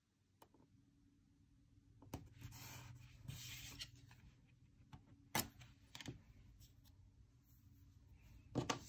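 Faint rubbing of fingertips smoothing a strip of washi tape onto a paper planner page, with a few light clicks and taps. There is a louder handling noise near the end.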